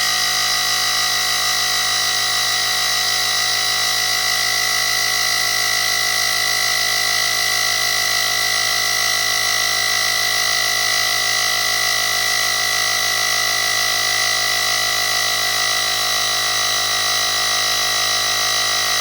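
Portable electric air pump running steadily, with a constant high-pitched whine over its motor hum, then cutting off suddenly near the end.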